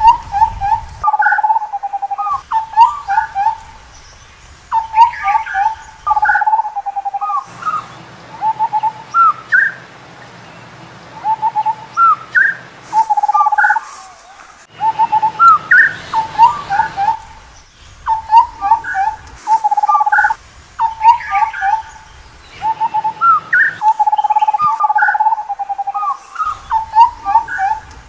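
Indian scimitar babblers calling: fluty whistles, some held low and some hooking quickly upward, packed into bouts of a second or two with short gaps between them.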